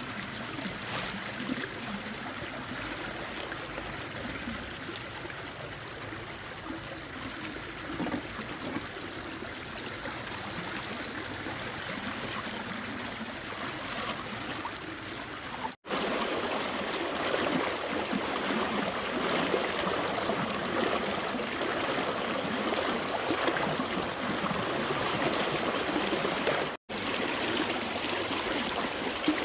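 Flowing water running and trickling steadily. It breaks off twice at edit cuts, about halfway through and near the end, and is louder after the first cut.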